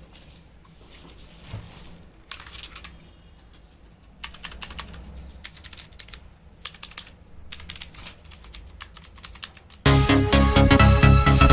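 Typing on a Cosmic Byte CB GK-12 mechanical keyboard: several runs of rapid key clicks. About ten seconds in, loud electronic music starts suddenly.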